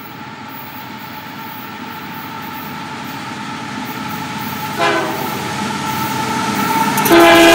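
Canadian Pacific freight train's lead diesel locomotives approaching, their engine sound growing steadily louder. The air horn gives a short blast about five seconds in, then sounds again, longer and louder, near the end.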